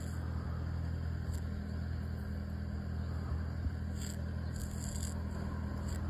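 Steady low mechanical rumble, like a vehicle engine running. A few faint, brief high-pitched sounds come about a second in and again around four to five seconds in.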